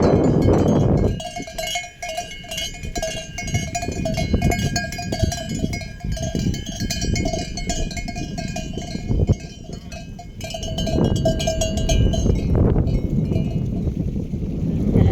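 Metal bells worn by a flock of sheep ringing and clanking as the animals move. Several bells sound at once, with a low rustle of the moving flock under them.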